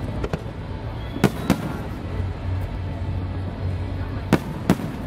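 Aerial firework shells bursting with sharp bangs that come in pairs, one pair about a second in and another near the end.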